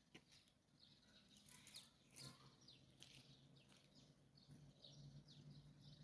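Faint songbirds chirping, many short quick notes repeating throughout, with a faint low hum under them in the second half.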